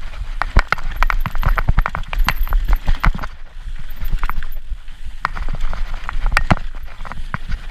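Mountain bike clattering and rattling over rocky trail at speed: a quick, uneven run of sharp knocks from the tyres striking rocks and roots and the chain and frame banging, over a steady low rumble of wind on the camera microphone.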